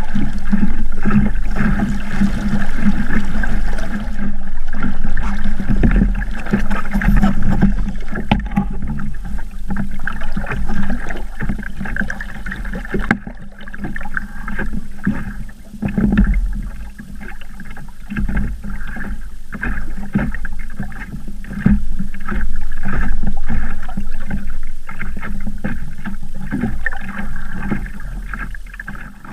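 Water rushing and slapping against the hull of a small Sabot sailing dinghy under way in choppy water: a steady rush with a constant low rumble and many short, irregular slaps.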